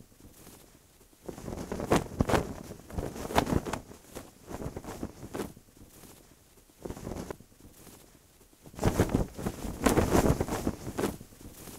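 Hanging laundry sheets rustling and flapping in irregular bursts as they are pushed aside, loudest late on.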